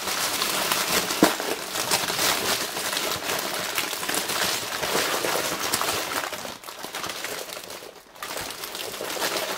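Crinkling and rustling of a chocolate Easter egg's foil wrapping as it is torn open and crumpled by hand, a dense crackle that eases off briefly near the end.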